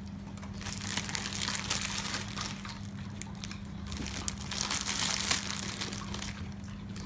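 A dog chewing a piece of raw carrot: an irregular run of crunches and crackles.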